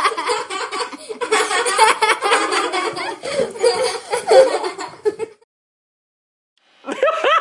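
Hysterical human laughter in rapid, pulsing bursts that cuts off abruptly about five seconds in. After a second and a half of dead silence, another laugh starts near the end.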